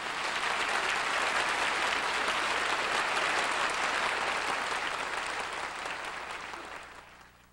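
An audience applauding, the dense clapping fading out near the end.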